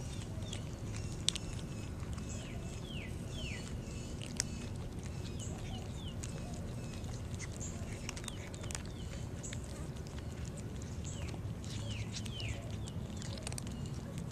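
Kittens crunching dry cat food, heard as scattered short clicks, over a steady low rumble. Birds chirp in the background with short falling calls, often two or three in a row.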